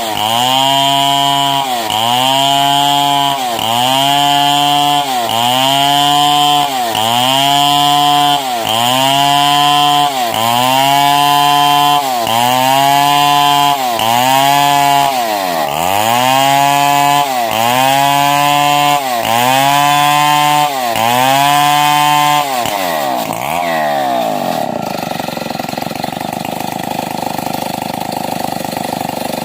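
Stihl 070 two-stroke chainsaw ripping a log lengthwise. The engine pitch dips under load and recovers in a regular cycle about every second and a half. A little over 20 seconds in it drops to a steady idle.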